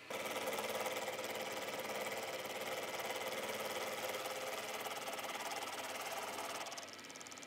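Milling machine's end mill cutting a slot into a metal block: a steady, fast, even chattering cut that drops quieter near the end.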